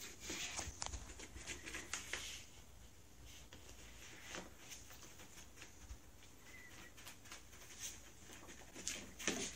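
Faint irregular scratching and tapping on cardboard as a cat paws and bats at toys inside a cardboard box, with a flurry in the first couple of seconds and another near the end.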